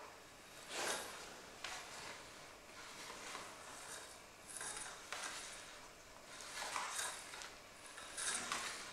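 Handling noises as a thin model rocket is slid down its launch rod and set on the pad: a string of short, soft rustles and light scrapes at uneven intervals.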